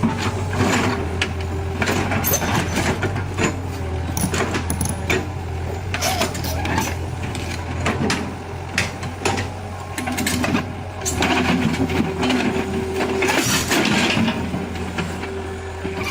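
A heavy vehicle's engine running steadily, with repeated knocks and clatter of machinery over it.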